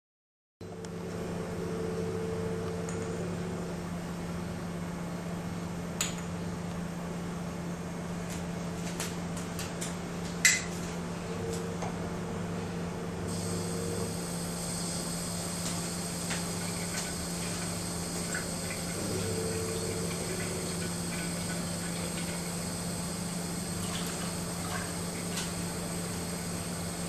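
Steady low hum with a couple of sharp clicks, then from about halfway through a thin stream of water from a kitchen mixer tap runs steadily into a stainless steel sink, falling over the back of a hanging plastic teaspoon.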